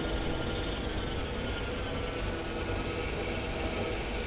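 CNC turning center running, its spindle turning the chuck and workpiece: a steady machine hum over a noisy rush, with several steady tones, one shifting slightly in pitch about a second in.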